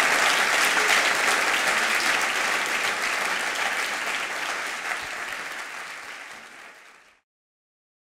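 Audience applauding. The clapping thins and fades from about four seconds in and is cut off abruptly about seven seconds in.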